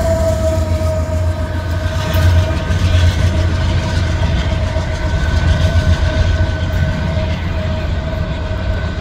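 Diesel freight locomotive passing close and moving away: a steady engine rumble with held whining tones over the noise of wheels on the rails.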